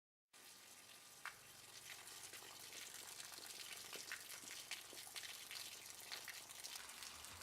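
Faint running water from a hose, a light splashing hiss dotted with small drip-like clicks, starting a moment in and getting slightly louder.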